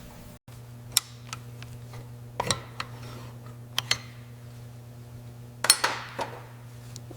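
Hand tools and small metal parts clinking and tapping, about a dozen sharp clinks with the loudest cluster near the end, over a steady low hum.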